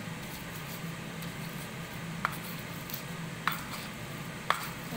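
Stone pestle grinding a spice paste on a flat stone mortar (cobek), with three sharp stone-on-stone knocks in the second half, over a low steady hum.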